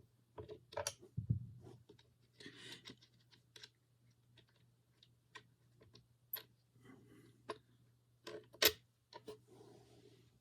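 Irregular metal clicks and ticks of a skate T-tool turning the nuts off a longboard's truck mounting bolts, one click near the end louder than the rest. A faint steady low hum runs underneath.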